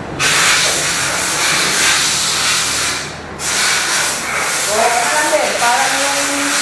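A loud, steady hiss, broken off for a moment about three seconds in, with a voice over it near the end.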